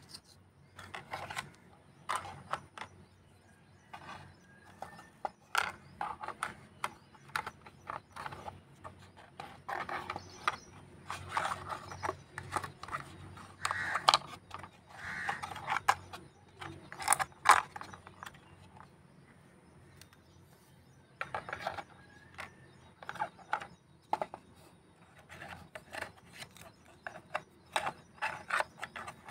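Small hard plastic toy pieces clicking and tapping against the shelves and walls of a miniature plastic toy refrigerator as they are put in and moved about; irregular clicks, with a pause of a few seconds past the middle.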